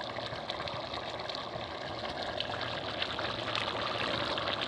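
Pot of rice boiling in its water: a steady bubbling hiss with many small pops.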